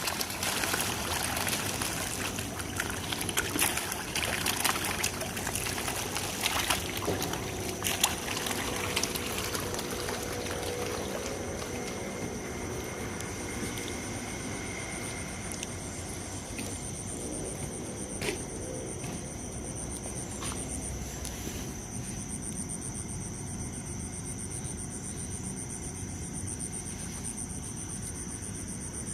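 Water trickling and splashing. It is busier, with sharp splashes, over the first ten seconds or so, then settles into a steadier, quieter trickle.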